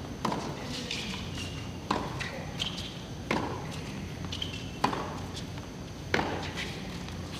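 Tennis rally: racket strings striking the ball about every second and a half, five sharp hits in all, over steady background noise.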